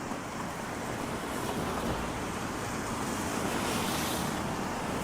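Steady hissing rush of a rainy city street, rain and tyres on wet pavement, swelling a little louder past the middle and easing near the end.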